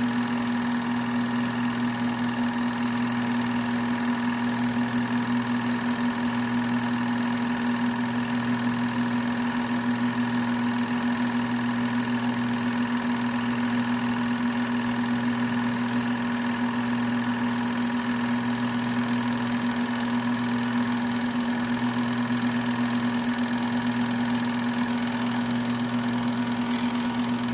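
Sears 'Tower' home-movie projector running: a steady motor and fan hum with the fast, even clatter of the film being pulled through the gate.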